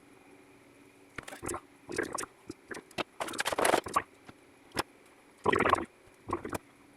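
Workbench handling noises: irregular clicks, rustles and short scrapes of small tools and parts being moved and worked, with the longest scraping burst about three to four seconds in.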